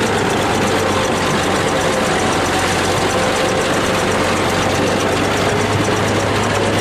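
Bulldozer engine running steadily with a constant low hum as the machine drives onto the cars.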